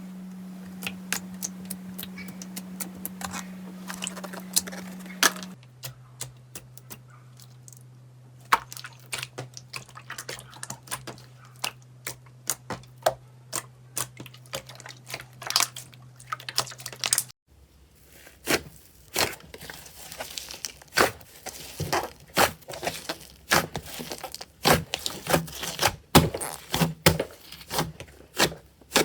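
Slime being squeezed and worked by hand, giving many quick sharp crackling pops and clicks like crinkling or tearing. A faint steady low hum lies under the first two thirds, dropping in pitch about five seconds in and stopping partway through, where the crackling becomes denser and louder.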